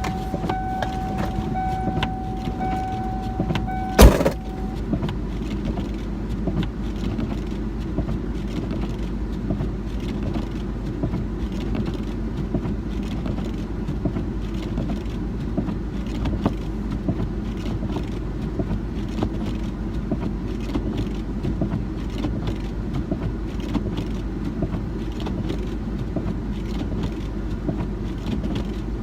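A 1996 Ford Bronco's engine idling under a steady rumble of wind noise. A steady door-open warning tone sounds for the first four seconds and stops with a loud door slam.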